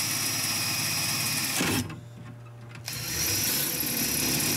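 Cordless drill running a bit through pilot holes in a sheet-steel electrical panel cover, enlarging them to 3/16 inch: a steady whir that stops for about a second partway through, then starts again.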